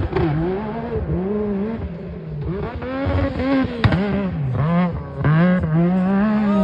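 Yamaha YXZ1000R's three-cylinder engine through a Weller Racing exhaust, driven hard: the revs climb and drop back again and again in quick succession. There is a single sharp crack about four seconds in.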